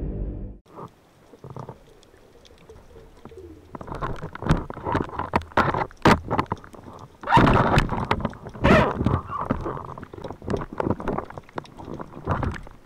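Underwater sound picked up by the camera: irregular clicks and knocks with bursts of rushing, gurgling water noise as the diver moves along the rocks with a speargun. Sparse for the first few seconds, then much busier.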